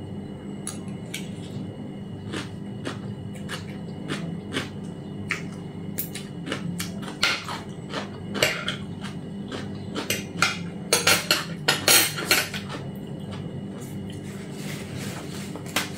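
Metal fork and spoon clinking and scraping against a ceramic plate while eating, in scattered sharp taps that come thicker and louder around the middle.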